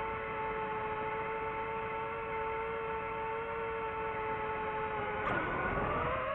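DJI FPV drone's motors and propellers whining at a steady pitch. About five seconds in, the whine dips sharply and then climbs to a higher pitch as the throttle changes.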